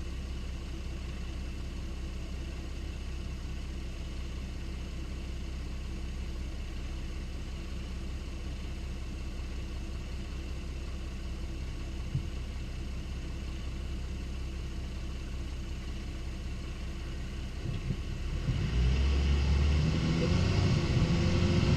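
Lexus IS250 GSE20's engine running steadily at idle, with one brief sharp tick about twelve seconds in. Near the end it grows louder, with a shifting engine tone and rumble as the car gets under way.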